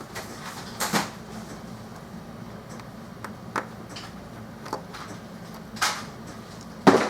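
A handful of short, sharp clicks and knocks, about five of them spaced irregularly, as small objects and tools are handled and set down on a workbench; the loudest knock comes near the end.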